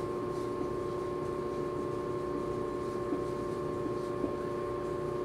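Steady room hum made of several constant tones, the sound of ventilation or equipment running. Over it come faint strokes and light taps of a dry-erase marker writing on a whiteboard.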